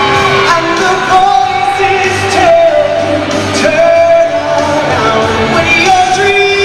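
A man singing a pop song live into a handheld microphone over instrumental accompaniment, with long held notes, echoing in a large arena.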